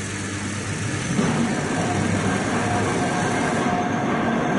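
A train running: a steady rumble with a low hum that grows louder about a second in.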